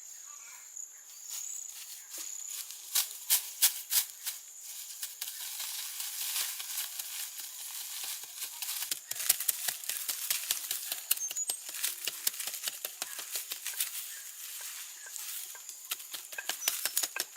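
Rapid, irregular sharp clicks and taps that grow denser after the first few seconds, with a steady high insect buzz underneath.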